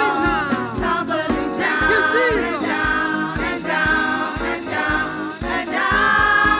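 Gospel worship music: singing voices over a band with a steady beat of about two beats a second, ending on a long held note.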